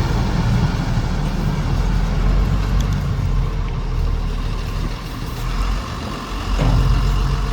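Diesel engine of heavy construction machinery running with a steady low rumble, easing off briefly about five seconds in and picking back up about a second and a half later.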